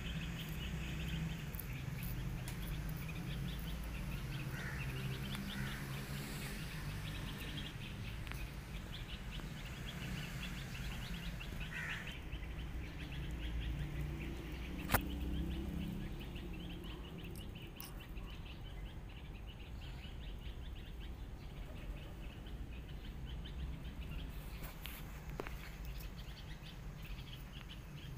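Birds chirping over a steady low hum, with one sharp click about halfway through.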